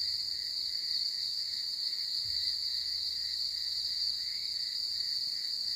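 Nighttime insect chorus, mostly crickets: a steady, high-pitched trill with no break, and a fainter pulsing chirr lower down.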